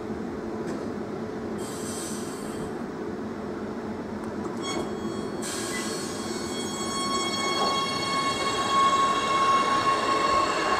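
Oslo T-bane MX3000 metro train at the platform: two short high tone signals, then the train starts off with a steady high-pitched whine and wheel squeal that grows louder over a low running hum.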